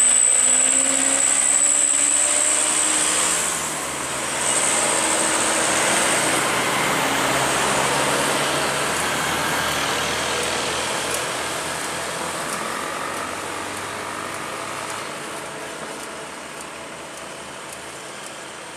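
Loaded Mitsubishi Canter light truck's diesel engine and tyres passing close by on asphalt, the engine's pitch falling as it goes past, then pulling away with the sound slowly fading. A steady high whine is heard during the first few seconds.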